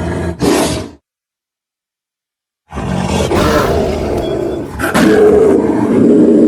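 Animal-style roar sound effects for a monster character, one after another with a gap of complete silence between them: a short roar that cuts off about a second in, then a longer, louder roar starting near three seconds.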